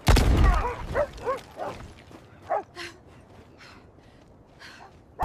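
A thud, then a run of short, arching yelps from creatures that fade out over about three seconds, leaving a faint hiss with a few soft whooshes.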